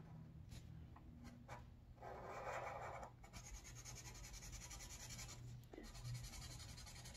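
Sharpie permanent marker's felt tip stroking across paper as stripes are filled in with black ink, faint, with the longest and loudest stroke about two seconds in.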